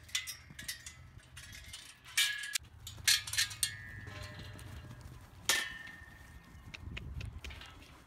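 Steel sheep-yard panels and rails knocking and clanging several times, a cluster of sharp hits about two to three and a half seconds in and another about five and a half seconds in, the metal ringing briefly after the hardest knocks.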